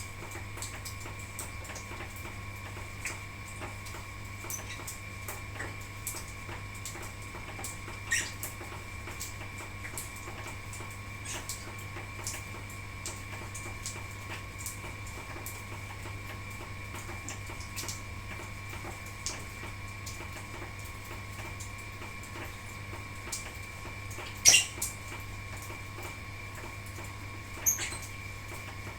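Lovebirds giving a few short, sharp chirps, the loudest about two-thirds of the way through, over a steady hum and a run of faint ticking.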